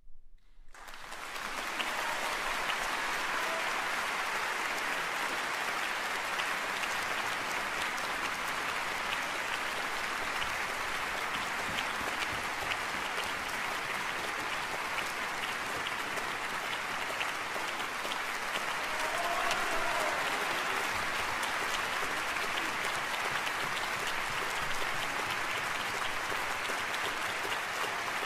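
Audience applauding, swelling up over the first two seconds and then holding steady.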